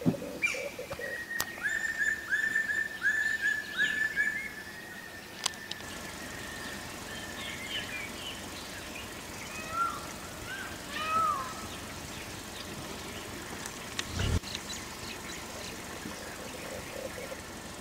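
Forest birds singing: a run of about six repeated, down-slurred whistled notes over a couple of seconds, then scattered chirps and short whistles over a steady hiss. A single low thump comes about fourteen seconds in.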